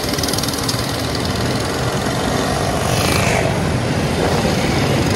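Motor vehicle engine running steadily, under a constant rushing noise.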